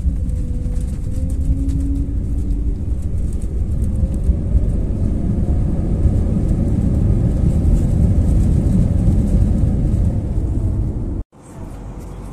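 Airliner cabin noise during taxi: a loud, deep rumble with a faint engine tone that rises and sinks again. About eleven seconds in it cuts off abruptly, followed by a quieter steady cabin hum.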